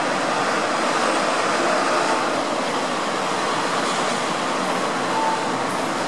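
Steady rushing background noise with a faint steady hum running under it.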